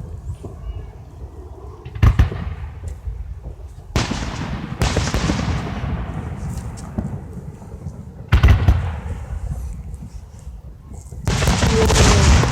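Aerial fireworks going off: sudden booms about two seconds in, around four and five seconds, and about eight seconds in, the last the loudest, each fading out over a second or two. Near the end a longer, dense stretch of noise sets in and keeps going.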